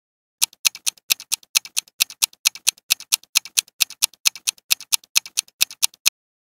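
Countdown timer sound effect: a fast, even clock-like ticking at about four to five ticks a second, alternating louder and softer, that stops suddenly about six seconds in.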